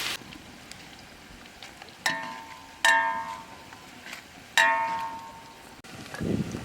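Metallic clanks, each ringing briefly before fading, four times at uneven intervals.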